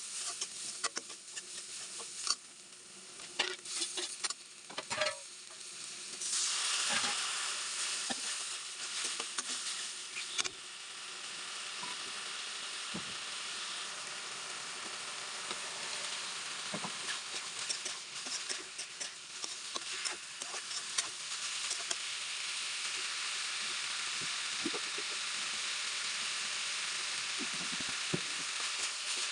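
Food frying in hot oil in a pan and being stirred, with scattered scraping clicks; about six seconds in a loud sizzle starts suddenly, as if ingredients went into the oil, and then settles into a steady sizzle.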